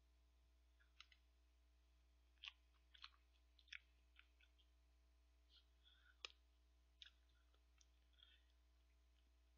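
Faint, scattered clicks of eating ice cream: a metal spoon scraping and tapping against the tub, with soft mouth sounds in between.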